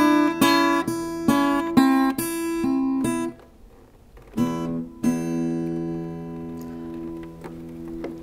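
Acoustic guitar played by hand: a quick run of picked notes and chords for about three seconds, a short pause, then two strummed chords, the last left ringing and slowly fading.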